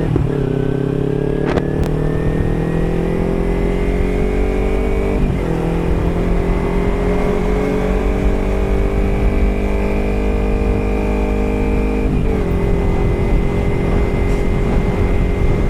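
Kawasaki Ninja 300's parallel-twin engine pulling steadily at road speed, its pitch climbing slowly and dropping at two gear changes, about 5 and 12 seconds in. Wind rumble runs underneath.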